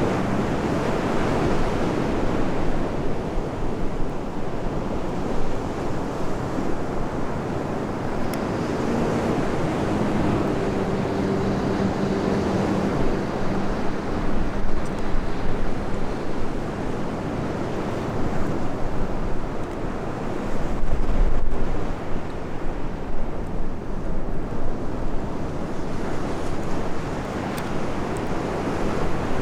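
Sea waves washing onto the shore with wind buffeting the microphone, rising and falling in surges. A faint low hum runs for a few seconds midway.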